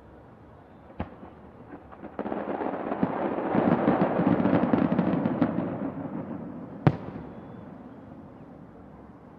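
Fireworks going off: a single bang about a second in, then a dense crackling barrage of many rapid bangs that swells and fades, with one sharp, loud report near the end of the barrage.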